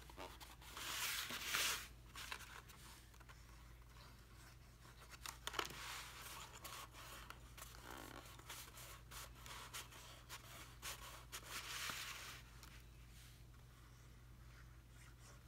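Fingers pressing and rubbing folded card stock tabs together, making soft scratchy paper rustles in three brief bouts, the first about a second in and the last near twelve seconds.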